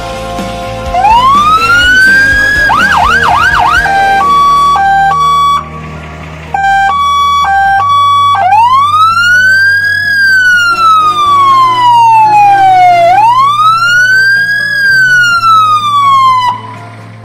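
Electronic emergency siren of a Mercedes-Benz Sprinter fire-rescue van being run through its tones: a rising whoop, a quick burst of fast yelps, a two-note hi-lo pattern with a short break, then two slow wails that rise and fall. It cuts off shortly before the end.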